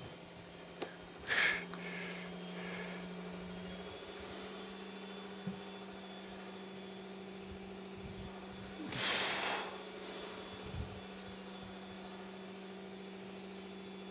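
A steady low hum, with two short hissing bursts, one near the start and one about nine seconds in.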